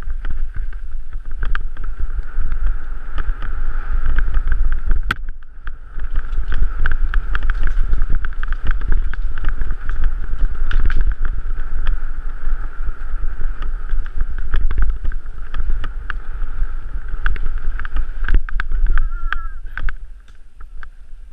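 Mountain bike descending rough rocky singletrack, heard from the rider: wind buffeting the microphone, with tyres rolling over stones and the bike rattling in many sharp clicks over a steady high whir. It gets quieter near the end as the bike slows.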